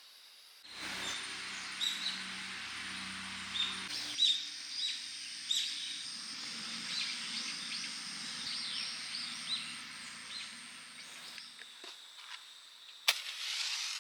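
Outdoor ambience of many small bird chirps over a steady high thin insect-like tone and a low engine hum, as from a distant vehicle. A single sharp click comes about a second before the end.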